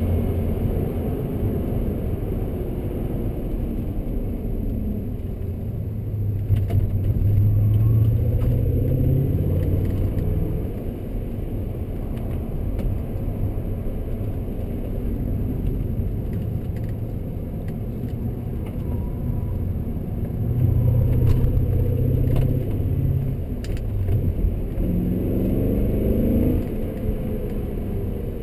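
E39 BMW M5's 4.9-litre V8 heard from inside the cabin under way, its note rising and falling with the throttle. It surges louder twice, about a quarter of the way in and again past two-thirds, over steady road and tyre noise.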